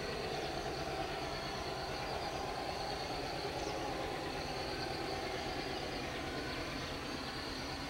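Steady low rumble of a distant train out of sight, with a thin, steady high insect buzz over it.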